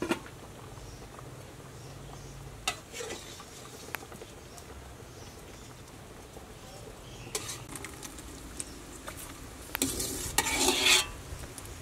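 Pot lid lifted with a sharp clink, then a ladle knocking against a cooking pot and a glass bowl as cooked fish is scooped out, a few separate knocks building to a dense clatter about ten seconds in. A steady low hum runs underneath.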